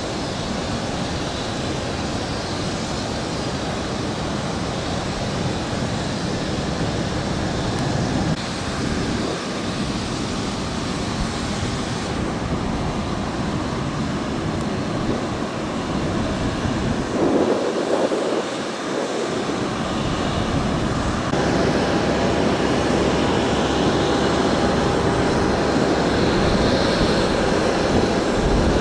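Steady rushing noise of jet aircraft at an airfield, with no distinct events. The sound changes abruptly about twelve seconds in and again about twenty-one seconds in.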